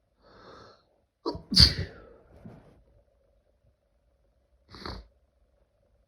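One person sneezing hard once during an allergy sneezing fit, with a soft sound just before it and a trailing tail after. A short, quieter burst follows near the end.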